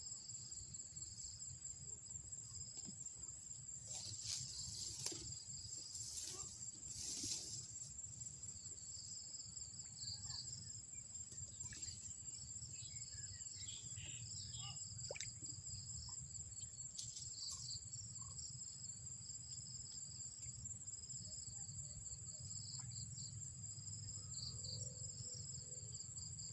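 Insects trilling steadily on one high, fast-pulsing note, with a fainter, broken trill beneath it. A few short rustles come about four to seven seconds in, and scattered short chirps come in the middle.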